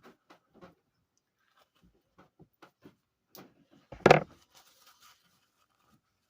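Scattered light taps and clicks of objects being handled, with one much louder knock about four seconds in.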